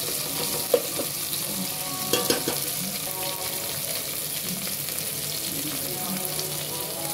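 Sliced onions, tomatoes and green chillies sizzling steadily in hot oil in an aluminium pot. A steel spoon knocks and scrapes against the pot a few times in the first couple of seconds.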